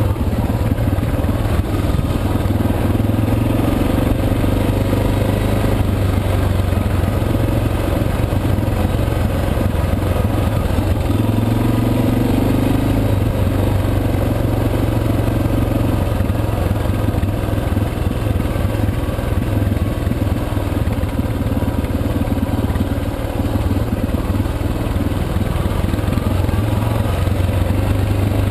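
Suzuki DR650's single-cylinder four-stroke engine running under way on a dirt trail. The engine note is steady and loud, swelling a little with the throttle a few times.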